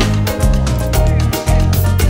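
Soca band playing live, an up-tempo groove with a heavy bass line and a drum beat about twice a second.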